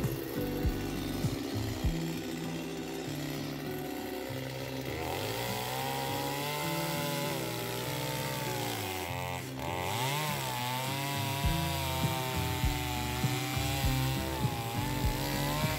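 Chainsaw cutting through a log, its pitch sagging and recovering as it bites into the wood, with a deep dip about halfway through; it comes up clearly about five seconds in. Background music with a steady beat plays throughout.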